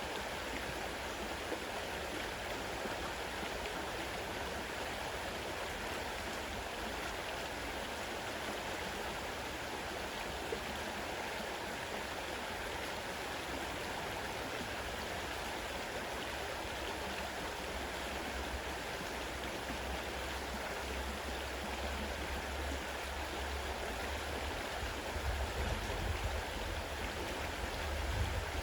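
Fast-running river water rushing steadily. A low rumble builds near the end.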